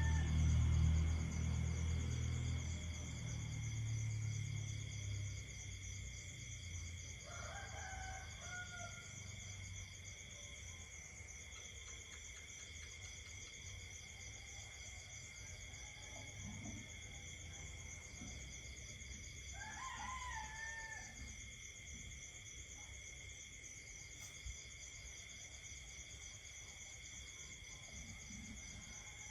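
Insects trilling steadily at night in several high, unbroken tones, while a rooster crows three times: at the start, about 8 seconds in and about 20 seconds in. A low rumble, the loudest sound, fades away over the first several seconds.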